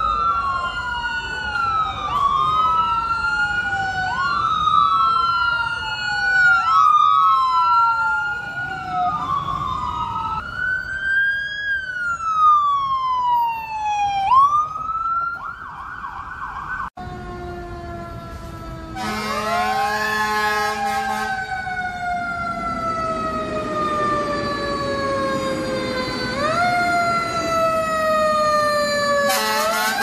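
Emergency-vehicle sirens wailing, from an ambulance and a fire engine. The first siren rises sharply and falls about every two seconds. After a sudden break about seventeen seconds in, a slower wail rises quickly and then falls over about seven seconds.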